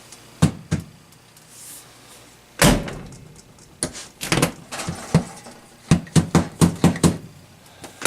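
Old refrigerator door and latch being worked: a heavy clunk about two and a half seconds in, then a run of quick knocks and clicks.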